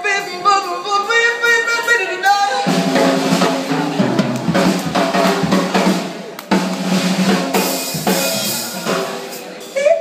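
Live band with a woman singing a short phrase, then about two and a half seconds in the drum kit takes over with a run of snare, bass drum and cymbal hits, the cymbals washing loudest near the end.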